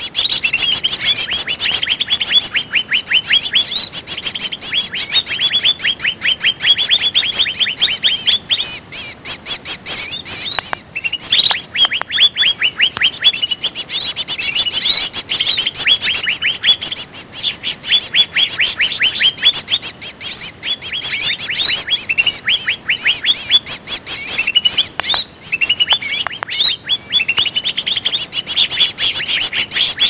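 Bird-trapping lure recording used to attract green leafbirds (cucak ijo), made from the calls of small songbirds (sirtu, jantung and trucukan hutan). It is a dense, unbroken run of rapid high chirps and twitters.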